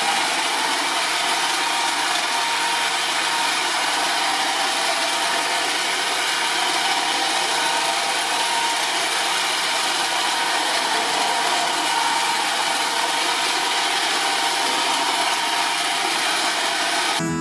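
Roomba robot vacuum running: a steady whirring hiss with a few faint steady whine tones, unchanging throughout.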